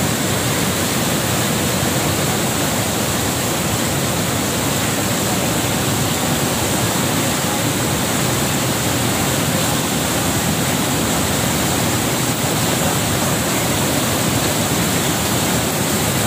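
A river in flood, its muddy water rushing and churning over its banks in a steady, loud wash of noise that never lets up.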